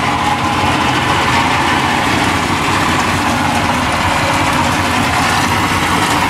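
Twin Yamaha 50 hp two-stroke tiller outboards idling together with a steady, unbroken run, soon after a cold start.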